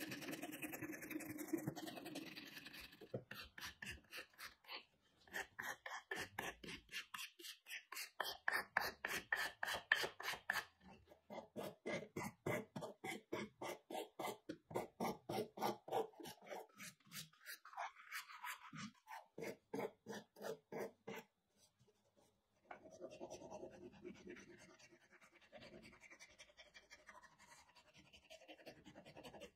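Rhythmic back-and-forth scraping strokes, several a second, like a hand tool worked over metal or wood. They stop for a moment about three-quarters of the way through, then go on more irregularly.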